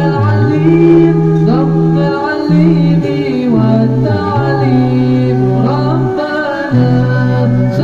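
Male voices singing an Islamic devotional song a cappella through microphones: long held low notes underneath ornamented, gliding melody lines in harmony.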